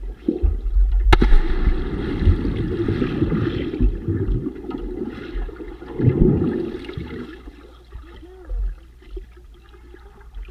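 Underwater sound of bodies plunging into the water overhead: muffled rushing and churning of water and bubbles, heaviest in the first few seconds and again about six seconds in, with a sharp click a little after one second.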